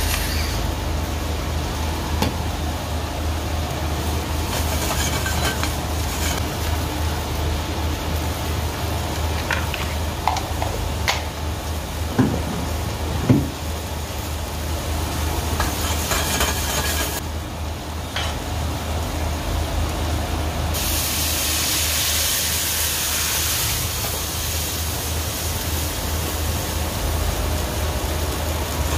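Food sizzling in a frying pan over a steady low hum. There are two light knocks about 12 and 13 seconds in, and the hiss grows louder for a few seconds past the middle.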